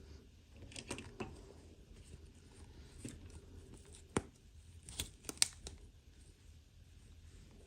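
Small plastic toy pieces and packaging being handled: scattered light clicks and taps with a little crinkling, a sharper click about four seconds in and a quick run of clicks around five seconds.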